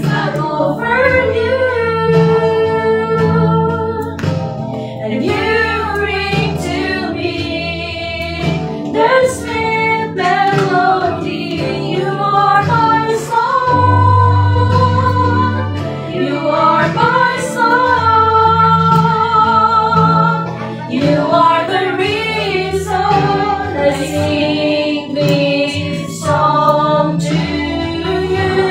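Three women singing a Christian worship song together into one microphone, over an accompaniment with held low bass notes.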